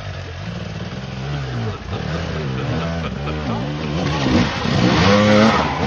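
Dirt bike engines on a steep rocky climb, the throttle blipped and rolled on and off so the revs rise and fall over and over. They climb hardest and loudest near the end.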